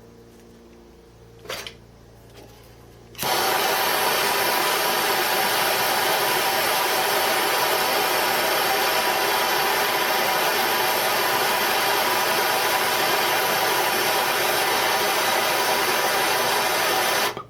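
Gas torch flame hissing steadily while it heats steel rivets red hot for setting; it comes on abruptly about three seconds in and is shut off near the end.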